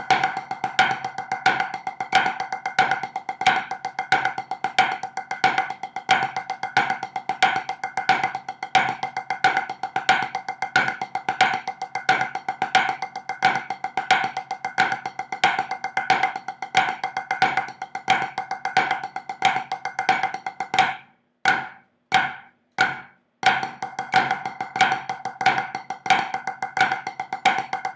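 Drumsticks playing flammed five-stroke paradiddles on a drum practice pad at 90 bpm: a fast, even run of sharp strokes with flams, each ringing at the same pitch. The playing breaks off for about two seconds around three-quarters of the way through, leaving only a few evenly spaced clicks, then resumes.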